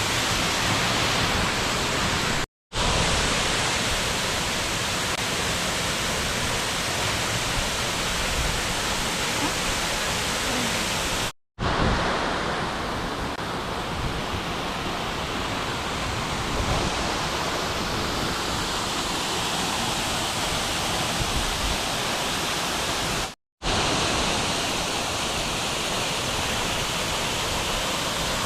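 Steady rushing roar of a large waterfall, broken three times by a split-second gap of silence.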